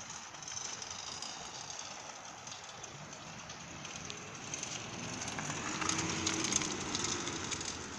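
Homemade aluminium recumbent trike rolling past on fat tyres over concrete: tyre noise with light clicking and rattling, growing to its loudest about six seconds in as it passes close, then easing off.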